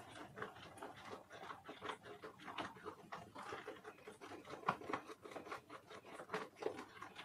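A spatula stirring and folding a thick, foamy slime mixture in a glass bowl, making soft, irregular wet squishes and small sticky pops, several a second.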